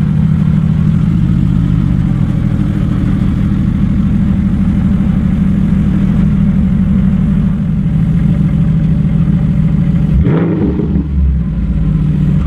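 Mercedes-Benz SLS AMG's 6.2-litre V8 running at steady revs as the car drives past. About ten seconds in, the sound changes to a lower, deeper rumble from the exhaust.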